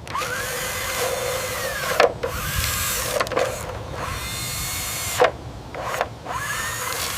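Heavy machinery at work, an excavator digging dirt and gravel: a motor whine rises and falls in pitch over a harsh, gravelly grinding hiss. Sharp clunks come about two, three and five seconds in.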